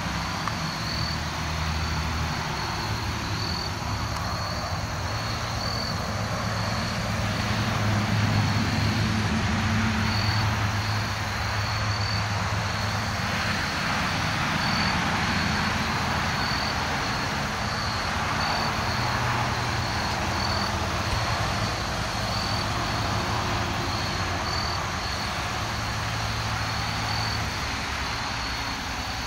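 Diesel locomotive engine droning low and steady as a slow train approaches, with crickets chirping.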